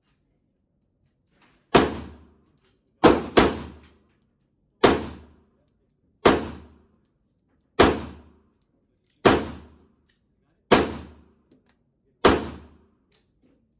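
9mm pistol, a Springfield XD9, fired about nine times at a steady pace of roughly one shot every second and a half, with a quick pair near the start. Each shot is a sharp crack that rings out briefly.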